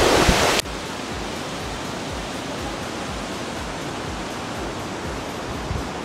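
Steady rushing of a fast mountain river below a suspension bridge. It opens louder, with wind buffeting the microphone, and drops abruptly to an even rush about half a second in.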